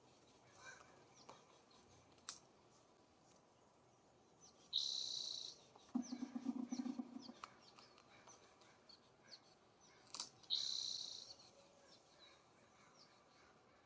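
Wild songbirds calling: two buzzy, high calls just under a second long, about five and ten seconds in, among scattered faint chirps. There are two sharp taps, and a low rattling buzz shortly after the first call.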